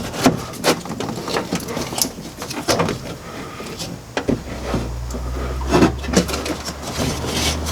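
Irregular knocks, taps and scrapes as a stiff sound-deadening sheet is worked into a car door's sheet-metal shell, with a low rumble from about four seconds in.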